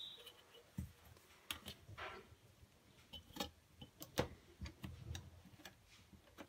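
Light, irregular taps and clicks of a pen and a plastic ruler against straws and a tabletop during marking, with a brief scrape about two seconds in.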